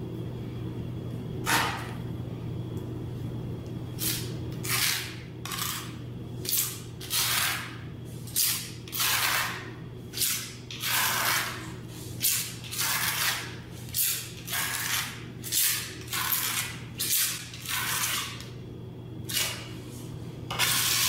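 Grout being scraped and spread into floor-tile joints with a small hand tool: a string of short scraping strokes, roughly one or two a second, over a steady low hum.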